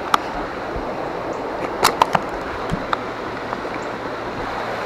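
Steady rush of creek water, with a handful of sharp clicks and knocks clustered about two seconds in.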